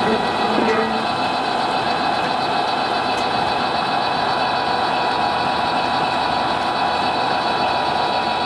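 Märklin gauge 1 V 100 model diesel locomotive and freight wagons running steadily along garden track, heard from a camera riding on the train: a steady whine near one pitch over a constant rolling noise.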